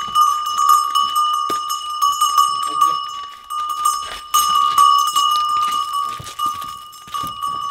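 Cowbell hanging from a walking cow's neck, clanking again and again with each step, the same ringing tone held throughout.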